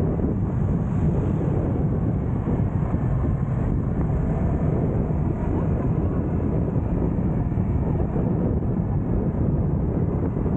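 Wind buffeting the camera microphone on a moving motor scooter, mixed with the scooter's running and road noise: a steady low rumble with no change.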